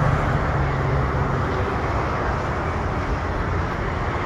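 Steady outdoor rumble of road traffic, with a low hum that fades out over the first second and a half.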